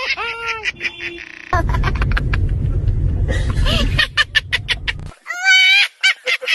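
A high-pitched laugh in quick cackling bursts, in short clips cut together abruptly; the middle clip sits over a low rumble of background noise.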